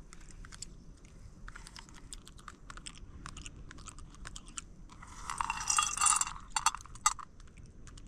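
Someone eating fried rice: chewing and many small clicks of a spoon on a plate, with a louder scraping noise lasting about a second from five seconds in.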